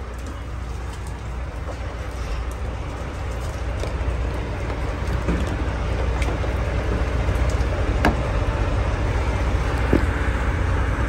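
Steady low rumble of a diesel truck engine idling, growing gradually louder, with a few light clicks and knocks from handling the cap of a plastic water tank.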